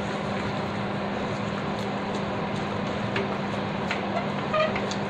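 Spatula stirring thick rava kesari (semolina halwa) in a non-stick pan, with a few light scrapes against the pan over a steady hiss and low hum.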